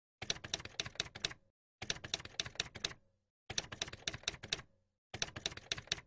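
Typewriter keys clacking in four bursts of rapid keystrokes, each a little over a second long, with short pauses between. It is a typing sound effect laid over lettering being typed out on screen.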